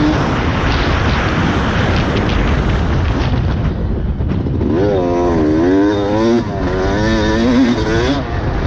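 Dirt bike engine running under a rider's throttle, its pitch rising and falling several times over the second half, with a heavy rush of wind noise.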